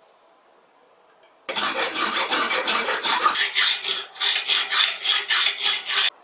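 Hacksaw cutting through a short threaded metal rod, rasping back-and-forth strokes about three a second. The sawing starts suddenly about a second and a half in and stops abruptly near the end.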